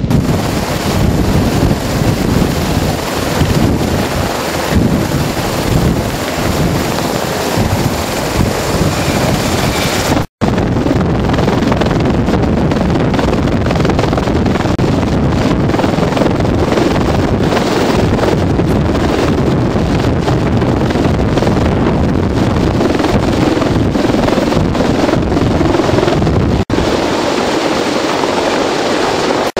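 Large military helicopter's rotors and turbine engines running loud and steady on a ship's flight deck as it lifts off, with wind buffeting the microphone. The sound cuts out for an instant twice.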